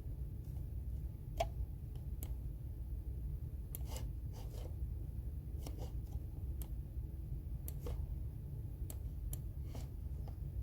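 About a dozen light clicks and taps, spaced irregularly a second or so apart, over a steady low hum.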